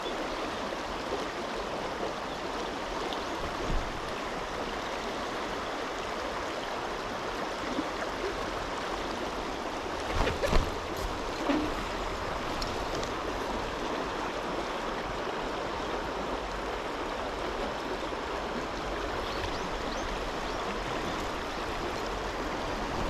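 Mountain river current rushing steadily over its rocky bed. A few short low thumps come about ten to twelve seconds in.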